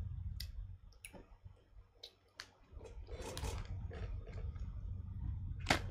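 A few faint, sharp, scattered clicks and a short soft rustle about three seconds in, over a low steady hum.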